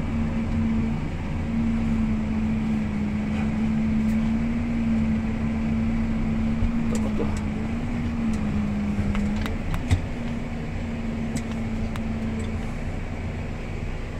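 Valtra N143 HiTech tractor's diesel engine running steadily under load, heard from inside the cab, its pitch rising and falling slightly with the throttle. There are light rattles and one sharp knock about ten seconds in.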